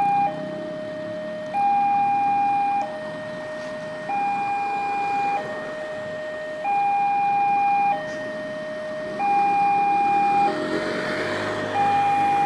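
Indonesian railway level-crossing warning alarm sounding its two-tone signal. A higher and a lower tone alternate, each held about a second and a quarter, the higher one louder, warning that a train is approaching and the gates are closing. A swell of rushing noise comes in near the end.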